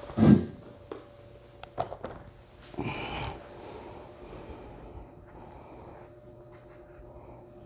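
A plastic tray set down with a knock, then rustling and small clicks of wet paper being handled on a wooden table, with a sharp sniff about three seconds in.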